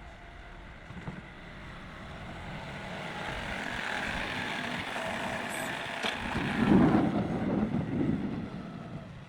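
A vehicle passing by: its noise swells over several seconds, peaks about seven seconds in, then fades away.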